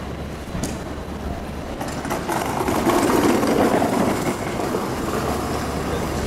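A vehicle passing over a steady low city hum; its rumble swells a couple of seconds in and eases off toward the end.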